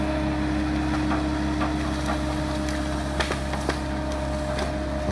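Excavator's diesel engine and hydraulics running steadily under load as the bucket pushes into a bamboo root clump, with a few sharp cracks of bamboo roots splintering around the middle.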